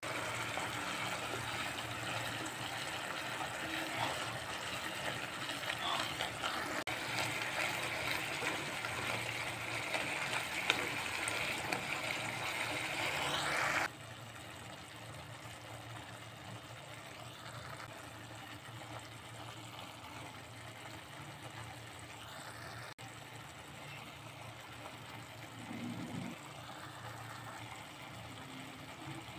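Watery tomato-and-capsicum masala sizzling and bubbling in a kadai, a steady hiss. About halfway through it drops suddenly to a much quieter sizzle as the masala, now cooked down and thick, simmers.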